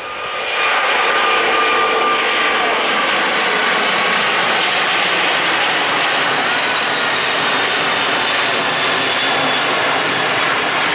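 British Airways Airbus A380's four Rolls-Royce Trent 900 turbofans at high power as the airliner climbs and banks low overhead. A loud, steady rush of jet noise swells about half a second in, with faint whining tones on top.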